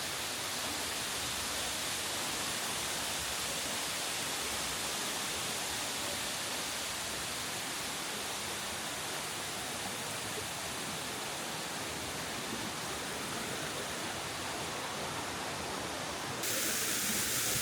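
Waterfall: a steady rush of falling water, stepping up a little louder near the end.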